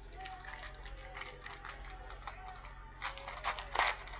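Crinkling and rustling of a foil trading-card pack and cards being handled, a run of short crackles with a louder burst of crinkling about three seconds in.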